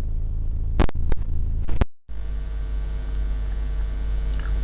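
Steady electrical mains hum on the recording, with a few sharp clicks in the first two seconds and a brief cut-out of the sound just before two seconds in.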